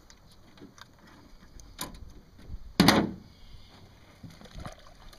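Light knocks and one loud thump against a john boat's hull, a little under three seconds in, while a freshly caught largemouth bass is handled and lifted in the boat.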